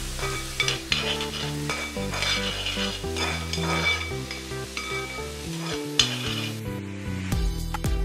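Chopped onions and green chillies sizzling in hot oil in an uruli while a steel spoon stirs them, scraping across the pan bottom again and again: the onions are being sautéed. Soft background music plays underneath.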